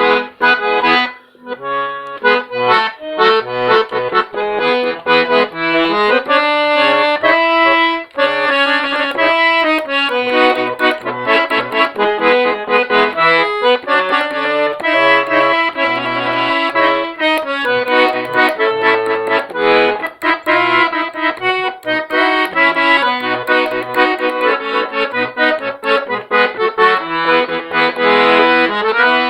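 Accordion (sanfona) playing a lively tune: a melody of held and quick notes over short bass notes repeated in a steady rhythm.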